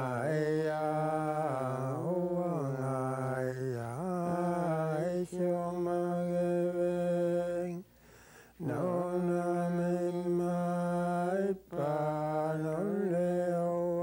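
A single voice singing an Inuit ajaaja song, unaccompanied: long held notes that glide down and back up, in phrases of a few seconds with short pauses for breath, one near the middle and one toward the end.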